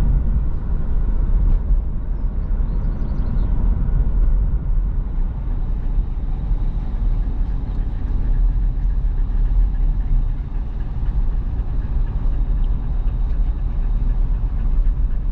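A car driving along, a steady low rumble of engine and road noise.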